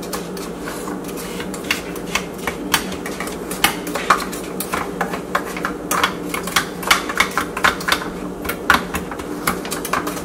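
A spoon tapping and scraping against the inside of a small metal springform pan while pressing down a cookie-crumb crust: irregular clicks, a few a second, over a steady low hum.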